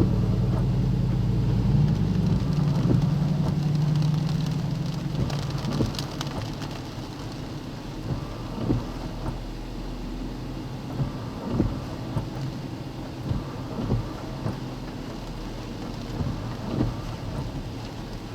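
Thunderstorm wind and rain against a car, with short gusts thumping every second or two. A low hum during the first few seconds fades out.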